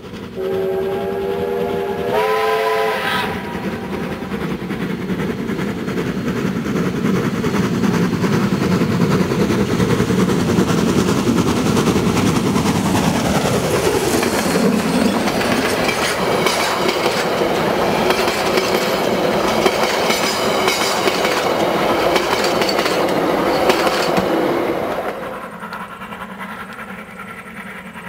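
1909 NZR A class steam locomotive A428 sounding its whistle for about three seconds, the note stepping up in pitch partway through, then running past with the noise of steam and motion falling in pitch as it goes by. The carriages follow with clickety-clack over the rail joints, and the sound drops off sharply about 25 seconds in.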